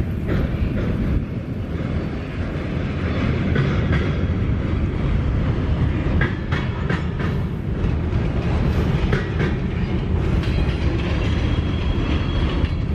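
Train rolling through a rail yard: a steady low rumble of wheels on track, with scattered sharp clicks and clanks from wheels crossing rail joints.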